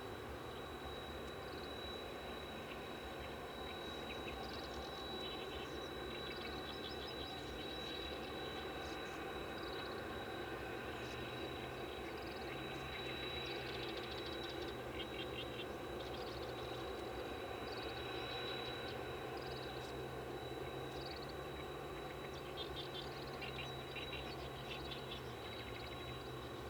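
Wild birds chirping and trilling on and off over a steady low hum, with a constant thin high-pitched tone throughout.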